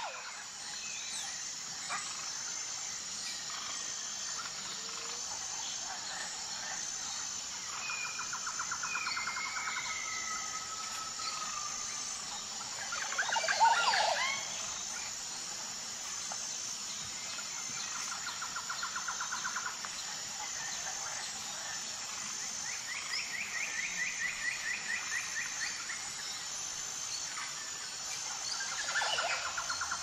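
Tropical jungle ambience: several birds calling, with rapid trilled calls that come and go and whistled glides, over a steady high-pitched insect drone. One loud sweeping call about halfway through stands out above the rest.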